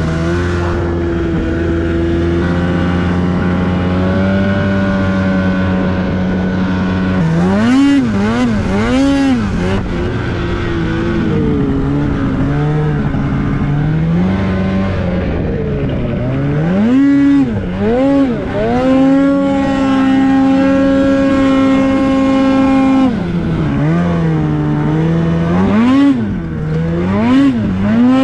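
Polaris two-stroke mountain snowmobile engine running under throttle. Its pitch rises and falls in quick throttle blips a few times, with steadier stretches of held throttle between.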